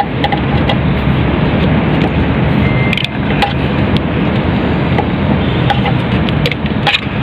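A vehicle engine running steadily, with scattered light clicks over it.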